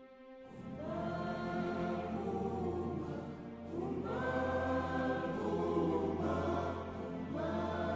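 Background music of a choir singing slow, long-held chords over a steady low bass. It comes in just after a quiet moment, and new phrases begin about four and seven seconds in.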